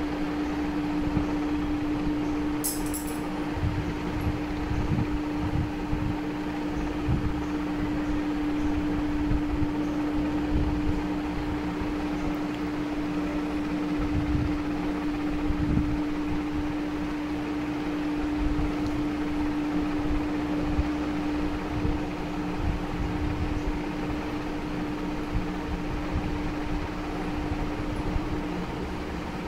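Steady mechanical hum with one constant low tone over an uneven low rumble.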